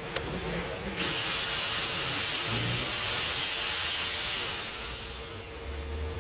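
A loud hissing whir from a tool or motor starts abruptly about a second in, holds steady for about three and a half seconds, then winds down with falling pitch.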